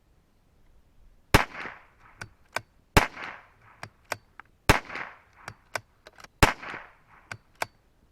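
Four .22LR shots from a CZ457 bolt-action rifle firing Federal Gold Medal 711B standard-velocity ammunition, spaced a little under two seconds apart. Lighter clicks between the shots come from the bolt being cycled, and the bolt is working a little harder with this ammunition.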